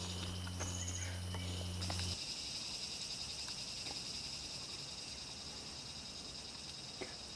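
Tropical forest insects making a steady, high-pitched drone with a fine pulsing texture. A low steady hum underneath stops suddenly about two seconds in.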